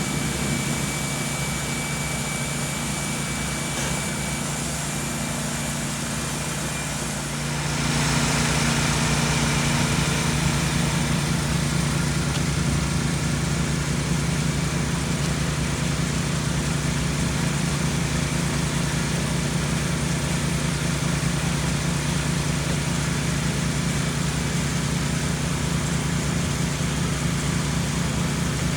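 An engine running steadily with a constant hum and hiss. The sound steps up, louder and fuller, about seven seconds in, and then holds at that level.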